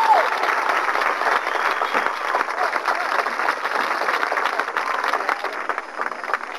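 Stadium crowd applauding and cheering, dying down toward the end.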